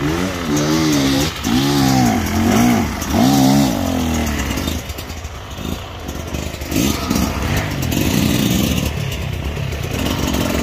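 Enduro dirt-bike engines revving up and down over and over as the bikes are worked up a steep forest climb. The revving is strongest in the first few seconds, eases in the middle, and picks up again near the end.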